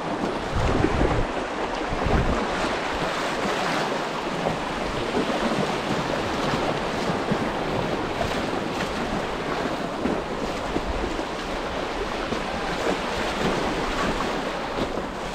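Steady rush and splash of creek water moving around a kayak, with wind buffeting the microphone in low gusts during the first couple of seconds.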